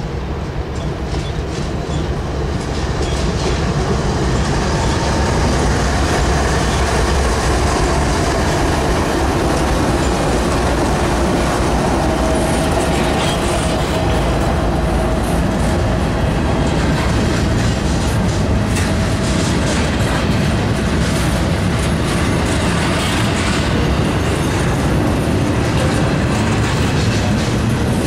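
BNSF double-stack intermodal freight train passing close by: the locomotives grow louder over the first few seconds as they arrive, then a steady rumble and clickety-clack of the loaded container well cars rolling over the rails.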